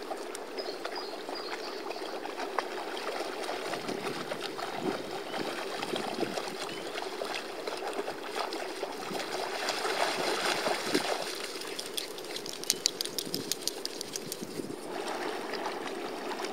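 Shallow water sloshing and trickling as small terriers wade and paddle through it, steady throughout, with a run of quick sharp ticks about three-quarters of the way through.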